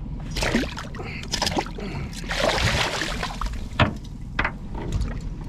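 Steady low rumble aboard a small fishing boat, with rushes of water-like hiss about half a second in and again from about two to three seconds in, and a sharp knock near four seconds.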